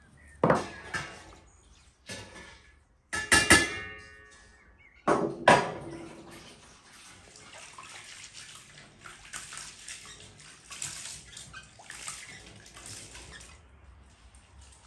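Rice being washed by hand in water in an enamel basin: a steady swishing and splashing from about six seconds in until shortly before the end. It comes after three loud clanks of kitchenware in the first six seconds, the middle one ringing like metal.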